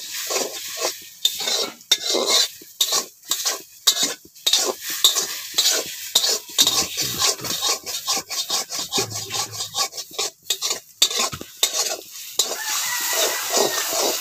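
Metal spatula scraping and knocking against an aluminium kadai in quick, irregular strokes as eggs are stirred and broken up, with the eggs sizzling in hot oil underneath.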